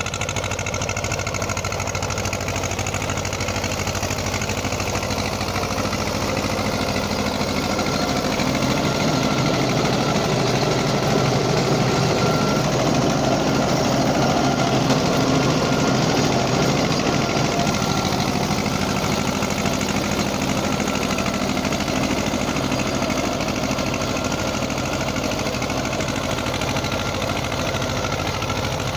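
Eicher 364 tractor's two-cylinder air-cooled diesel engine running steadily under load while driving a rotavator through the soil. It grows louder for a while midway through.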